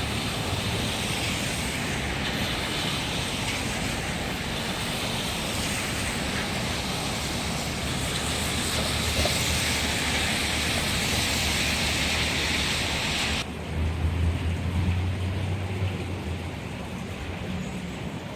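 City street traffic rumbling, with a steady hiss over it that cuts off suddenly near the end, followed by a brief louder rumble.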